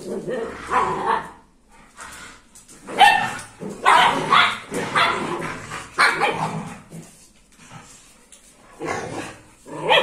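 Dogs barking and yipping in several short bursts as a pitbull-type dog and a smaller stray dog scuffle, with a lull a couple of seconds before the end.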